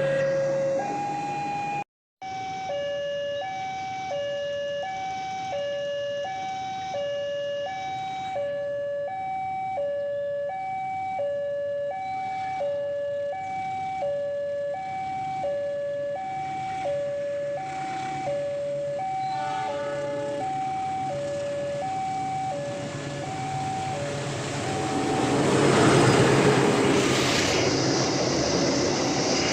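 Level-crossing warning alarm sounding a two-tone electronic hi-lo signal, alternating about once a second. About 25 seconds in, the alarm stops and a train passing grows louder as a rising rush of noise.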